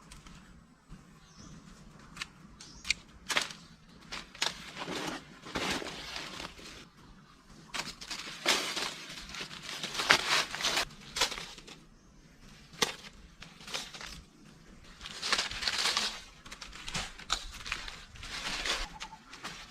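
Irregular crunching, snapping and rustling of plant material, with a few sharper cracks, loudest near the middle and again a little after.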